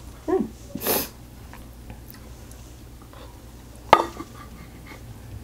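Close-up eating sounds: a short hum with the mouth full, then a quick noisy inhale about a second in, and a wooden spoon knocking sharply against the plate about four seconds in.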